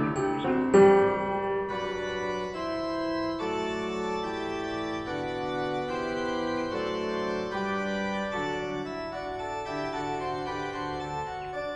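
Background music: an organ-like keyboard playing slow, held chords.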